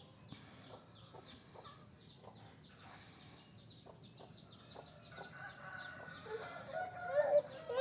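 Chickens chirping and clucking faintly, a steady run of short falling chirps, with a slightly louder call near the end.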